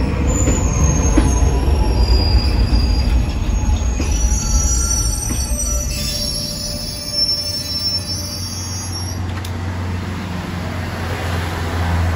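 Mont-Blanc Express electric train pulling into the platform: a loud low rumble with high-pitched wheel squeals as it slows. About seven seconds in it quietens to a steady low hum as the train stands at a stop.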